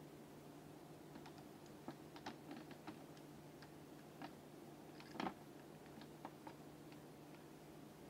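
Faint, irregular small clicks and taps of a screwdriver and fingers working on the plastic body and brass terminal screws of a water-heater wall switch, with one louder knock about five seconds in, over a steady low hum.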